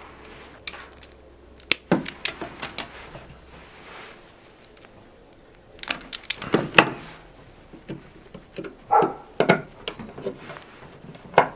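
Scattered small clicks, snips and rustles of hand wiring work: wire strippers working on insulated wire. Near the end, a plastic timer relay is pressed into its socket.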